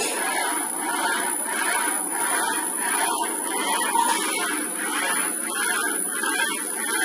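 Steady running noise of factory machinery, an even hum and hiss with a faint high tone that fades about halfway through.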